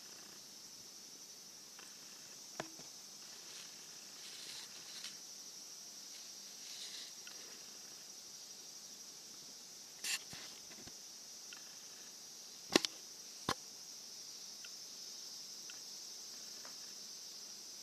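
Cicadas droning steadily with a high, even buzz, broken by a few sharp clicks or knocks; the loudest comes about two-thirds of the way through, followed closely by another.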